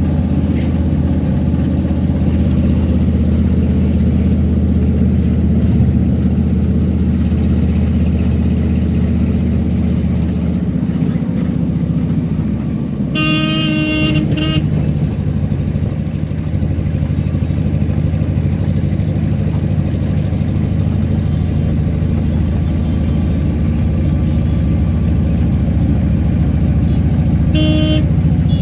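Car engine and road noise running steadily as a vehicle drives on a road. A vehicle horn honks for about a second around the middle, and again briefly near the end.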